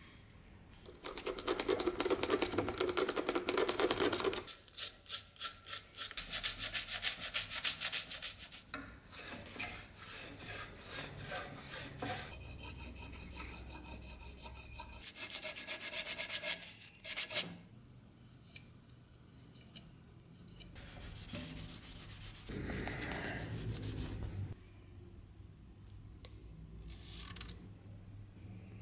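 Hand filing and rubbing on the dagger's handle with a needle file: scraping strokes in several bursts with short pauses, one stretch a run of quick, regular strokes.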